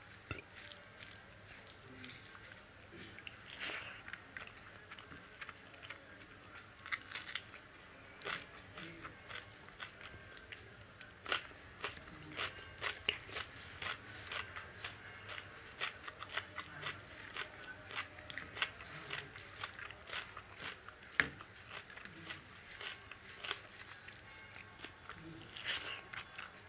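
Close-up eating sounds: a person chewing mouthfuls of dal and rice eaten by hand, with frequent short, irregular smacks and clicks of the mouth, and fingers working the rice on the plate.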